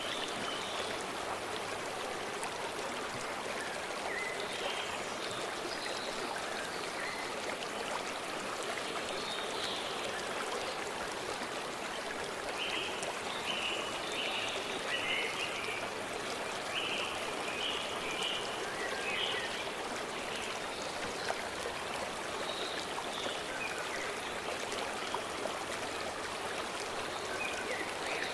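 Brook flowing steadily, with short bird chirps now and then, most of them in the middle.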